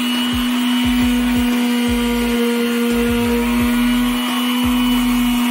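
Corded electric detail sander with a triangular pad running against the edge of a wooden cutout: a steady motor hum with the rasp of sandpaper on wood over it.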